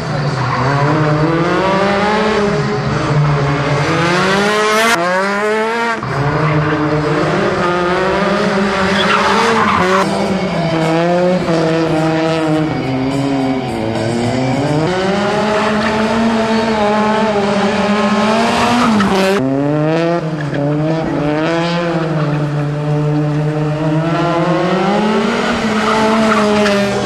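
Rally car engine revving up and down hard, with tyres squealing. The revs break off and pick up again sharply about 6, 10 and 19 seconds in.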